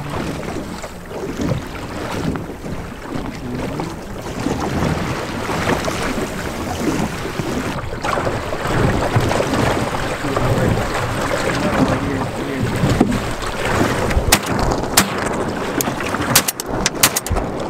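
Wind buffeting the microphone and choppy seawater lapping against a small boat's hull, with a cluster of sharp clicks and knocks in the last few seconds.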